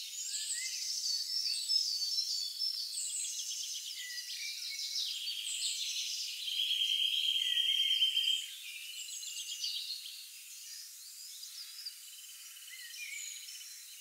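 Several forest songbirds singing at once, a busy mix of overlapping high chirps, whistles and warbles. A steady buzzing trill is held for about two seconds in the middle. The chorus thins out and grows quieter after that.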